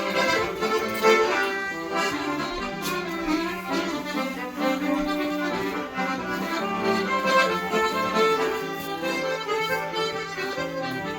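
Instrumental music: a melody of held notes over a steady low drone.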